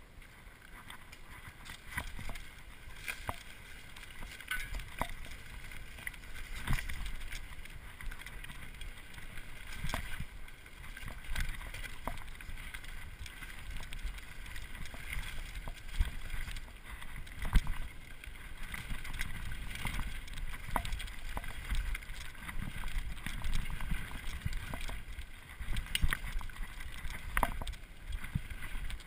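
Mountain bike riding down a dry, leaf-covered dirt singletrack, heard from the handlebars: a steady rolling rumble of the tyres on dirt and leaves, with frequent irregular knocks and rattles as the bike goes over bumps.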